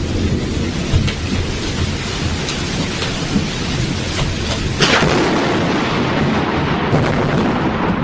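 Thunderstorm: steady rain hiss with a low thunder rumble underneath, and a sharp crack of thunder about five seconds in, right after a close lightning strike.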